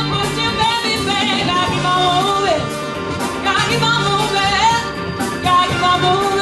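Live band with a horn section playing an upbeat rock groove over drums and bass, with a lead melody that slides up and down in pitch on top.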